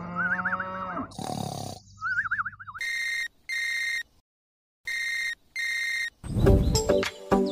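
Cartoon snoring sound effect: hissy in-breaths, each followed by a wavering whistle. Then a telephone ring sound effect sounds as two double rings, and a loud burst of sound comes in near the end.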